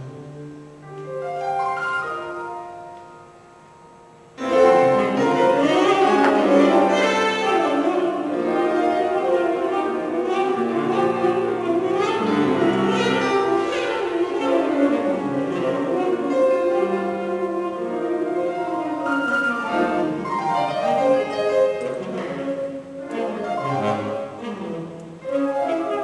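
Music for piano and bowed strings: a quiet passage swells and fades, then the ensemble comes in suddenly and loudly about four seconds in and plays on.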